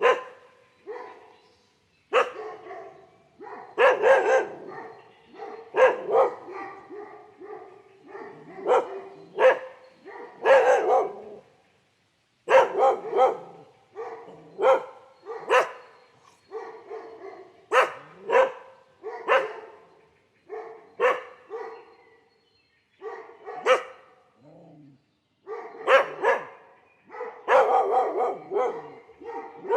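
Dogs barking in irregular volleys of sharp barks with short pauses between, the barking coming thicker near the end.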